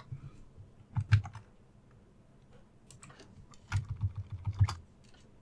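Computer keyboard keystrokes: a few scattered clicks, then a quick run of about five keys around four seconds in.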